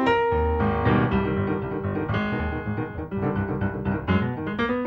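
Piano music accompanying a silent film, with quick melody notes and chords over a moving bass line.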